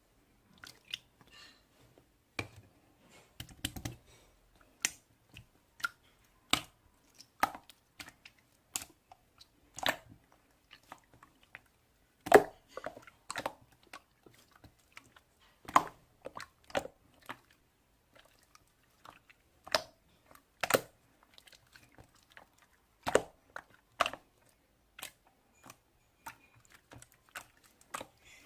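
Slime being squeezed and poked by hand, giving irregular sharp clicks and pops, roughly one or two a second.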